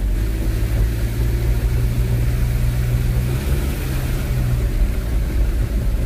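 Car engine and tyres running at low speed, heard from inside the cabin as a steady low hum. The engine note eases off about four and a half seconds in as the car slows to a stop.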